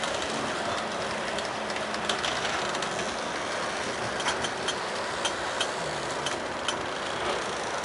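Freight train of covered hopper cars rolling past at close range: a steady rumble of steel wheels on the rails, with a run of short, sharp ticks between about four and seven seconds in.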